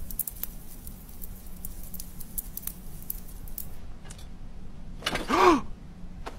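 A quick run of small, light clicks and scratchy ticks. About five seconds in comes one short tone that rises and falls, much like a brief vocal 'hm?'.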